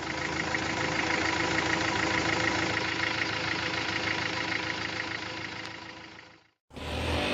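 Diesel truck engine idling steadily with a fast, regular ticking. It fades in and then fades out, and a louder vehicle sound cuts in right at the end.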